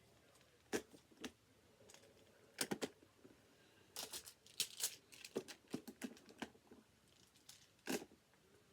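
Plastic magnetic building tiles clicking and clacking as they are handled and snapped together, in a series of irregular sharp clicks with a busier cluster in the middle.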